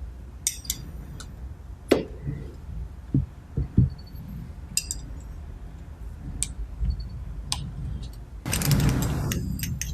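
Steel parts and hand tools clinking and knocking as the cylinder locking screws are removed from a pneumatic thread-rolling attachment. Near the end comes a rushing, scraping noise about a second long.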